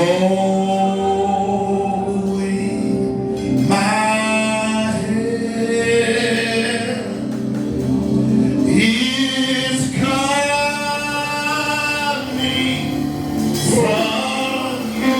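Gospel worship singing: voices hold long notes that change every second or two over a steady instrumental backing.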